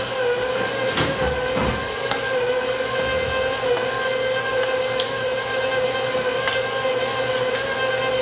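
Electric stand mixer running steadily with a constant motor whine, its beater creaming butter and sugar. A few light clicks from a plastic scoop against a steel bowl of flour.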